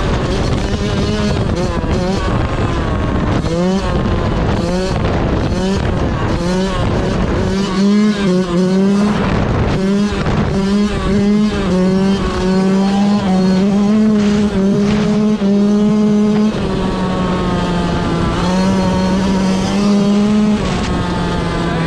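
Yamaha YZ125 two-stroke single-cylinder dirt bike engine under way, loud. Its note rises and falls over and over as the throttle is worked, then is held steady, with drops in pitch near the end.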